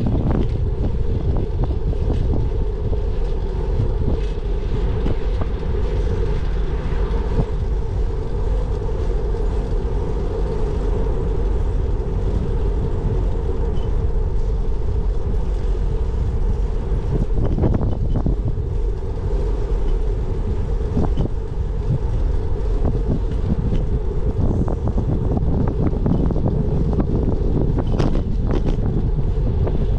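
Wind buffeting the microphone and road noise from a bicycle ride, with a steady hum underneath and scattered rattles and knocks, most of them about 17 seconds in and again near the end.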